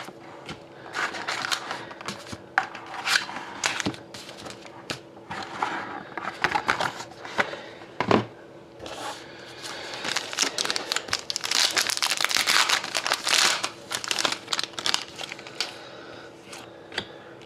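Plastic wrapping on a box of hockey trading cards being torn open and crinkled by hand, in irregular crackling bursts that are busiest about two thirds of the way through.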